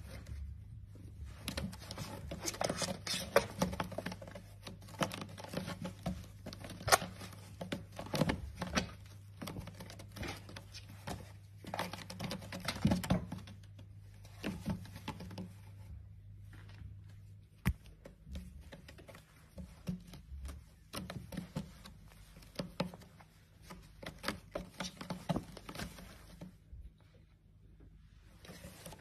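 Kitten's claws scratching and catching on a rope-wrapped scratching post as it bats at it, with irregular clicks, scrapes and soft taps coming thick and fast.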